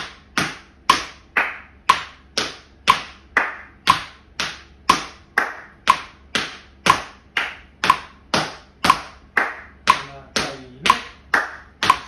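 Tap shoes striking a wooden floor in shuffle steps, kicking, pulling and putting down on the ball of the foot, in sharp, evenly spaced taps about two a second. A metronome at 60 beats per minute pings once a second along with them.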